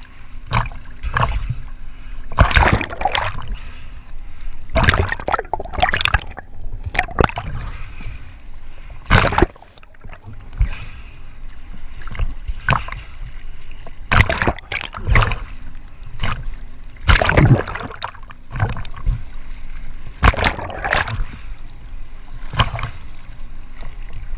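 Ocean swell sloshing and splashing over a camera held at the waterline, in irregular loud surges every second or two as waves wash over the microphone.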